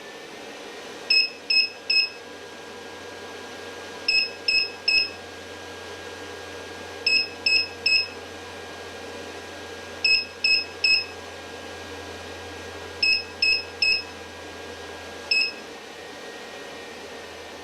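Power inverter's alarm beeper sounding high beeps in groups of three, about every three seconds, with a last single beep near the end: the inverter has cut out on too-high input voltage. A steady low hum runs underneath.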